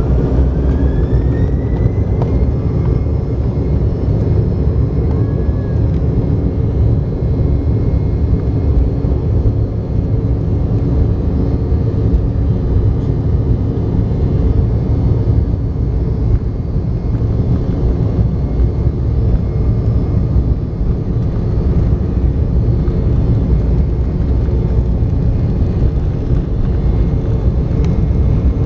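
Embraer 190's GE CF34-10E turbofan engines spooling up to takeoff power, heard from inside the cabin. A whine rises in pitch over the first couple of seconds and then holds steady over a loud, even rumble as the jet rolls down the runway.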